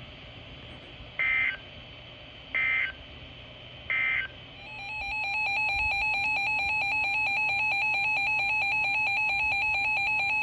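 Three short bursts of Emergency Alert System data tones, about a second and a half apart: the end-of-message code closing the first warning. Then, about four and a half seconds in, a steady shrill alert tone rises in and holds: the attention signal ahead of the next NOAA Weather Radio warning.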